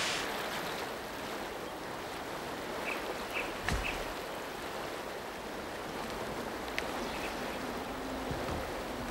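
Steady rushing outdoor noise, with one dull knock about four seconds in and a few faint high chirps just before it.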